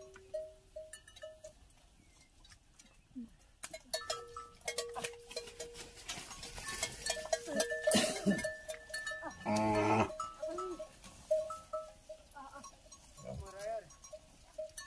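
Cattle and water buffalo moving about in a muddy yard, with bells clanking and hooves and bodies knocking for several seconds in the middle. A short low lowing call is the loudest sound, just before ten seconds in, and a higher wavering call comes near the end.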